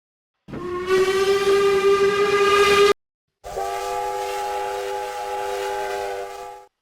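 Two separate train whistle blasts, each a steady chord of several tones, with silent gaps between them. The first lasts about two and a half seconds and bends up slightly in pitch as it starts. The second comes about half a second later and lasts about three seconds before fading out.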